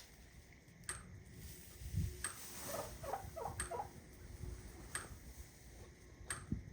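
Electric fence charger snapping, five sharp clicks about every second and a third. A few faint short piglet squeals come in the middle.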